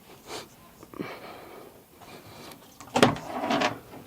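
A few light knocks and handling sounds around the car, then a louder scraping clunk about three seconds in.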